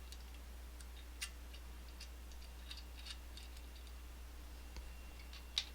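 Faint, irregular small metallic clicks and ticks of an Abloy Classic disc-detainer lock cylinder's parts being handled as it is taken apart, with one louder click near the end.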